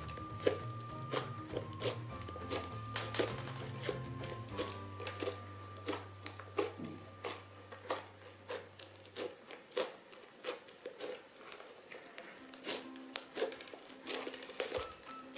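Crunchy slime being squeezed and pressed, giving many irregular sharp crackles and pops. Background music with sustained tones plays under it, and its bass line stops partway through.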